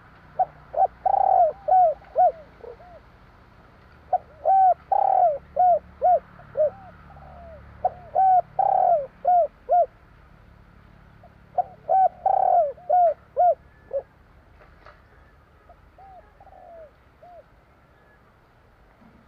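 Spotted dove (tekukur) cooing its 'kuk 3' song: four phrases of short rounded coos about four seconds apart, each with one longer, louder note, then a fainter fifth phrase.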